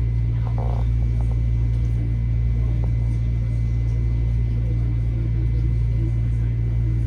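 Metro-North M7A electric multiple-unit train running, heard from inside the car: a loud, steady low rumble with a thin, steady high tone above it.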